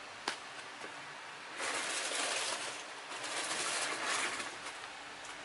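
A sharp click of small plastic toy parts, then two spells of rustling as a small plastic figure and its parts are handled, over a steady low hiss.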